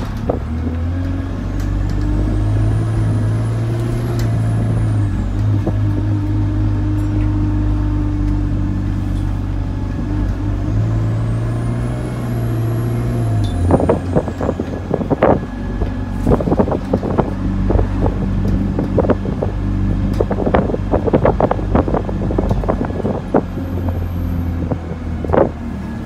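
Inside an Alexander Dennis Enviro200 single-deck diesel bus on the move: the engine and drivetrain run with a steady low hum that shifts in note a couple of times, and a faint high whine rises and falls twice. From about halfway through, the body and fittings rattle and knock in quick, irregular clicks.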